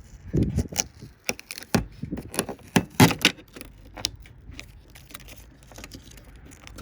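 Handling noise from pulling tape off inside a TV set: irregular clicks, taps and rustles, busiest in the first three seconds, then fainter.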